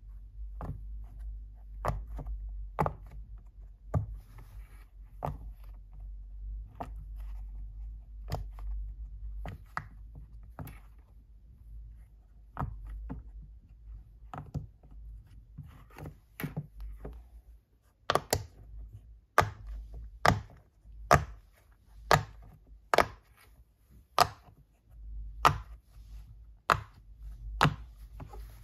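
Silicone pop it fidget toy: its bubbles are pressed one at a time, each giving a short sharp pop. The pops are softer and uneven at first, then louder and steady at about one a second in the second half.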